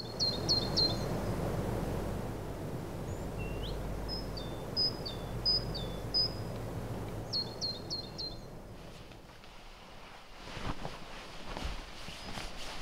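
Birds chirping in short groups of quick high chirps over a steady background hiss of outdoor ambience. From about ten seconds in, rustling and soft knocks of movement on a bed.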